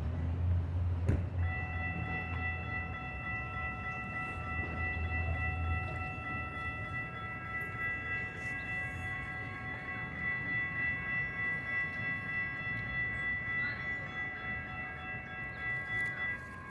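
Sacramento RT light rail train passing at a grade crossing. A rumble fades in the first few seconds, and a steady high-pitched tone of several pitches at once holds for about fifteen seconds, then cuts off near the end.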